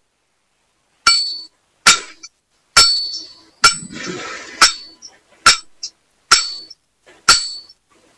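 A series of sharp clinks at an even pace, about one a second, each ringing briefly before dying away.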